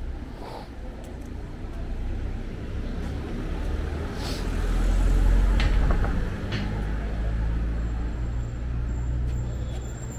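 City street traffic: a motor vehicle's engine rumbling close by, swelling to its loudest about halfway through, with a short hiss a little before that.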